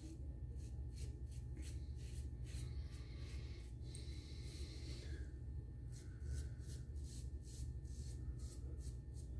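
Wet Shaving Club 'Merica double-edge safety razor scraping through stubble under shaving lather, in short repeated strokes a few a second.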